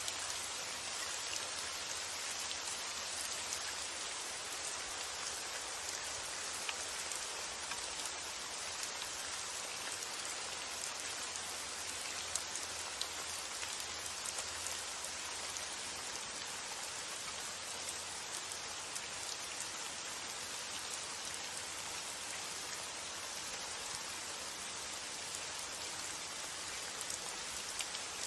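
Steady rain falling, an even patter with scattered louder drops standing out now and then.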